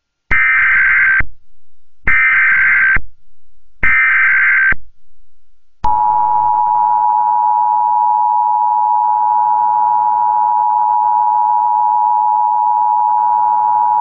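Emergency Alert System tones: three bursts of about a second each of SAME header data tones, then the steady two-tone EAS attention signal held for about eight seconds. It is the opening of a Tornado Warning alert, before the voice message.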